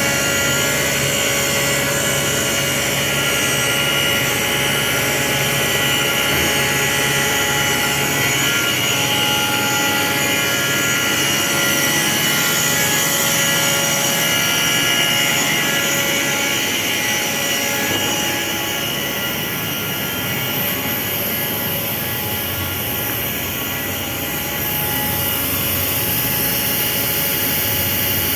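Industrial machinery running steadily: a continuous mechanical hum and whir with several constant tones, changing character slightly about two-thirds of the way through.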